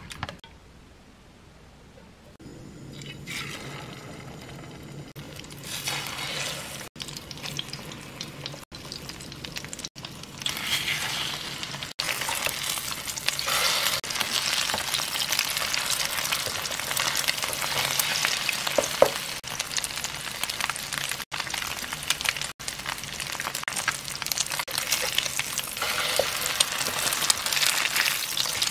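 Egg-coated tofu slices sizzling in hot oil in a frying pan. Quiet for the first couple of seconds, then a steady sizzle that grows louder.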